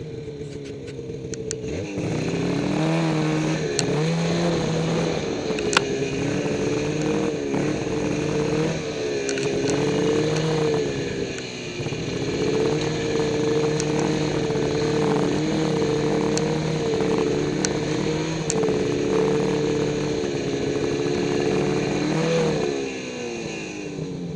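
Snowmobile engine running at cruising speed along a trail, its pitch rising and dipping with the throttle. Near the end it eases off, falling in pitch and level as the sled slows to a stop.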